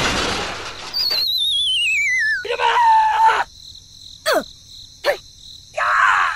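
Cartoon sound effects: a noisy rush fades out in the first second, then a falling, wavering whistle. After it come squeaky, voice-like chattering, two quick swooping zips and another squeaky burst near the end.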